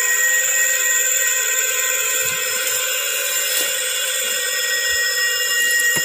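Steady high-pitched insect chorus: several constant tones sounding together without a break, with no change in loudness.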